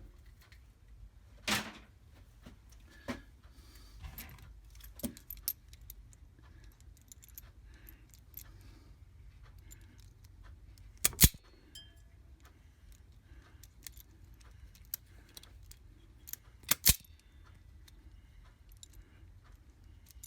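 Scattered small metallic clicks and clinks as wires with alligator clips and hand tools are handled while the wire ends are stripped, with a few louder sharp snaps spread through.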